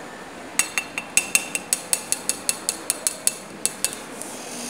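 A metal spoon clinking rapidly against a stainless steel bowl, about five or six sharp ringing clicks a second for roughly three seconds.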